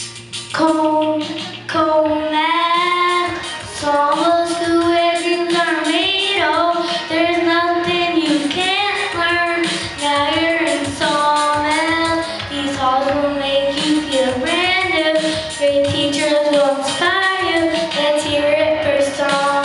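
A song with a high sung voice carrying the melody over a light accompaniment, playing continuously.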